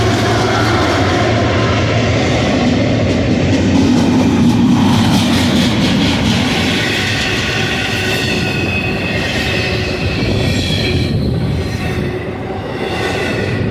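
CSX freight train passing at close range: the diesel locomotives' low engine drone fades over the first few seconds into the steady rumble of loaded intermodal container well cars rolling by. Wheels clack over the rail, and high ringing squeals from the wheels come and go in the second half.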